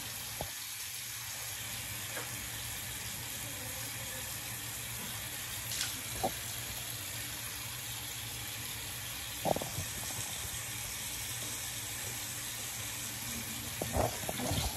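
Bathroom sink tap running steadily, an even hiss of water into the basin. A few faint short sounds, and a louder cluster near the end as a child leans over the sink to spit out a rinse.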